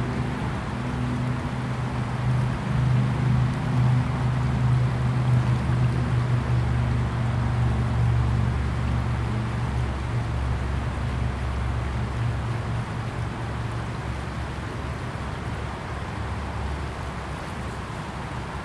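Shallow, fast river water rushing and churning over its bed, with a steady low rumble underneath that grows louder in the middle and eases off near the end.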